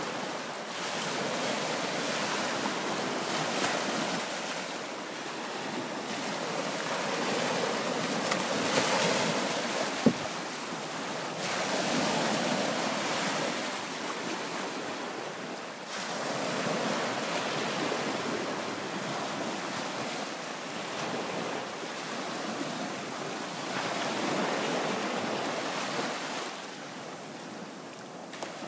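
Small bay waves lapping and washing up the sandy shore, swelling and easing every few seconds. A single sharp click about ten seconds in.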